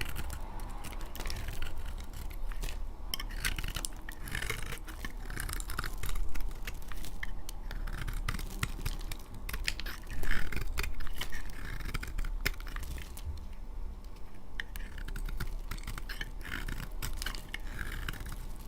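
Dry laundry soap being cut with a blade: crisp scraping and crackling with many small clicks, loudest about six seconds and again about ten seconds in.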